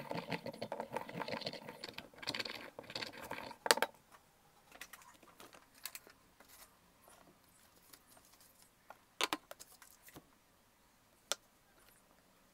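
Ceramic pestle grinding dry pigment in a small ceramic mortar: quick gritty scraping strokes that stop with a sharp knock a little under four seconds in. After that come a few light taps and clicks.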